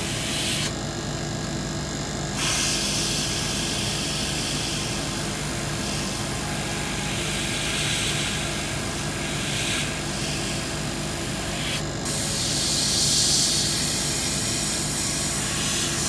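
Airbrush spraying paint with a steady hiss of air. The spray stops for under two seconds about a second in and drops out briefly around twelve seconds in. A steady low hum runs underneath.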